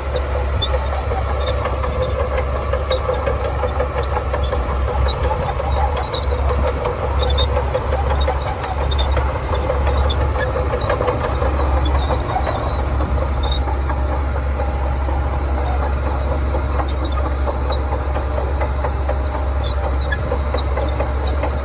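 Shantui DH17C2 bulldozer's diesel engine running steadily with a strong low rumble, with faint scattered high squeaks over it.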